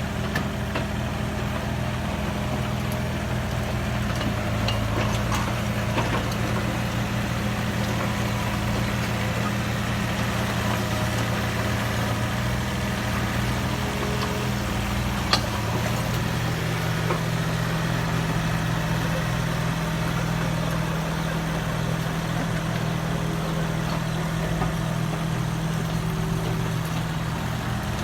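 Mini excavator's diesel engine running steadily, its pitch shifting slightly a little over halfway through. A single sharp click sounds near the middle.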